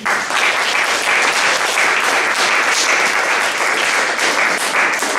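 Audience applauding, a dense steady clapping that starts abruptly and runs on, marking the end of a told folk tale.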